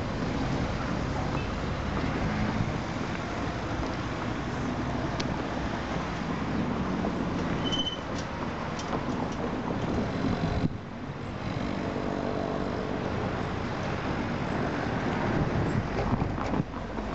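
Diesel locomotive engine running in the distance with a steady low hum. Wind buffets the microphone.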